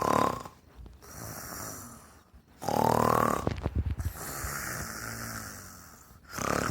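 A woman imitating a dog's snoring with her voice: a rasping in-breath that rises in pitch, followed by a long airy out-breath, repeated about every three seconds.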